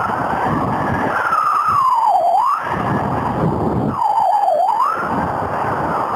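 Strong wind rushing over the microphone in flight, with one continuous tone over it sliding slowly up and down in pitch like a siren; the pitch dips low about two seconds in and again past the four-second mark.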